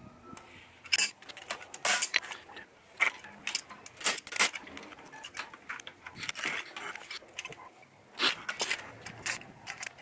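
Pliers scraping and clicking against a metal hood latch as hardened epoxy is chipped and pried off it: irregular sharp metallic clicks and scrapes, some much louder than others.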